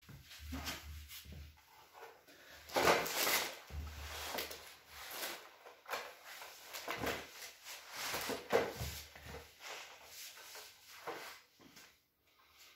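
Irregular rubbing, shuffling and soft knocks as a loaded plastic beer crate is shifted about and a body settles onto a floor mat beneath it, with a few dull bumps. The noise dies away shortly before the end.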